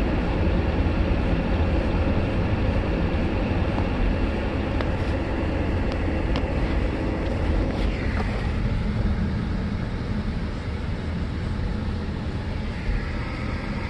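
Steady low rumble of road noise inside a minivan's cabin while it drives.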